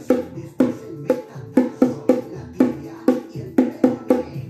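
Small djembe-like hand drum struck with one hand in a steady beat, about two strokes a second, over a song playing in the background.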